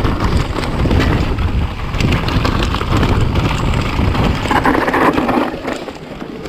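Wind buffeting the microphone on a moving bicycle ride, a steady low rumbling noise that eases a little near the end.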